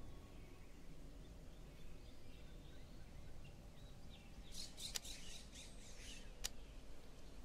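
Small birds chirping faintly over a low steady outdoor hush, the chirps thickening about four and a half seconds in. Two sharp clicks, about five and six and a half seconds in, from a camera shutter firing.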